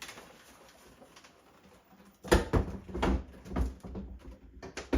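Metal TV brackets knocking and scraping onto the top rail of an ECHOGEAR tilt wall mount as the TV is hooked on: a run of clunks starting a little over two seconds in, the first the loudest.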